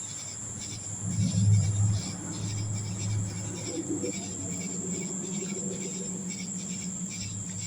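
Night insects, crickets, chirping in a steady high trill, with a low rumble that swells about a second in and fades to a lower hum.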